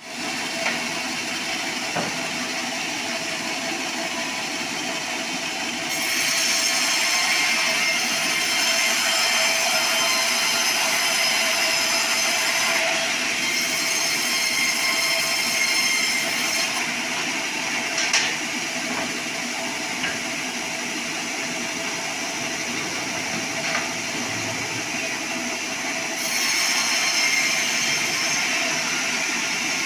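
A sawmill band saw runs with a steady hum, its blade ripping lengthwise through a log. The cutting noise gets louder and hissier from about six seconds in to about seventeen, and again near the end. There is one sharp knock about eighteen seconds in.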